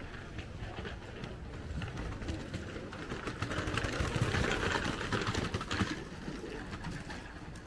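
A motor vehicle passes, its engine noise swelling about three and a half seconds in and fading after about six seconds.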